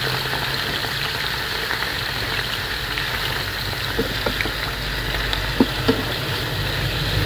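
Pork mesentery pieces, still half-frozen, sizzling steadily in hot oil in a pan over a low steady hum, with a few sharp crackles a little past halfway.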